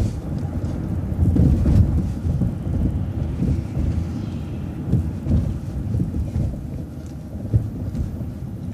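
Low, uneven rumble of a moving vehicle heard from inside the cabin: road and engine noise with small knocks and bumps.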